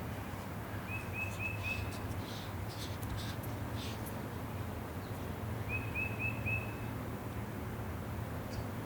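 A small bird calling twice, each time a quick run of four short, high notes, with a few faint chirps in between, over a steady low background rumble.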